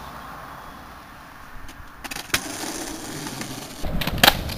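A faint steady outdoor hiss, then skateboard sounds on concrete: a few clacks, then wheels rolling with a rumble from just under four seconds in, and a loud sharp clack of the board shortly after.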